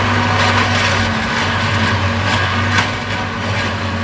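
Railway ballast tamper working, its engine and hydraulics giving a steady hum while the vibrating tamping tines work into the crushed-rock ballast with a gritty grinding noise. A few sharp knocks stand out, about half a second in and near the end.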